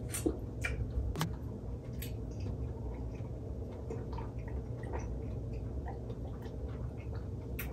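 Faint chewing with scattered small clicks and a few sharp ticks from people eating.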